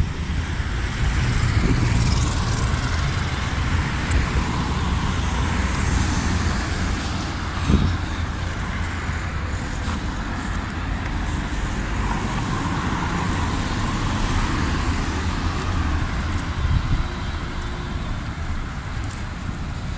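Steady road traffic noise from a queue of cars: a continuous hum of engines and tyres with a deep rumble, and one short knock about eight seconds in.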